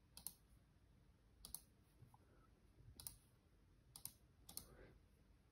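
About five short, sharp computer clicks, spread unevenly a second or so apart, against near silence.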